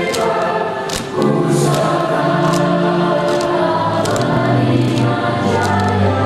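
Choir singing slow, sustained chords that change every second or two, with a brief dip about a second in.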